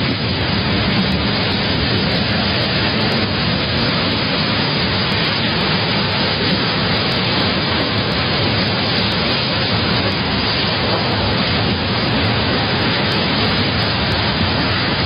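Violent storm wind blowing hard, a loud steady rushing noise with no let-up.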